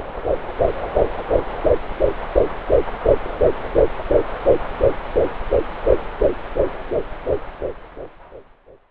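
A 10-week fetal heartbeat picked up by a BabyBeat home fetal Doppler: a fast, even pulse of about three beats a second over a steady hiss. It fades out near the end.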